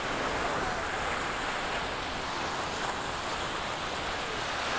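Steady beach ambience: the wash of surf mixed with wind noise on a camcorder's microphone, with faint distant voices.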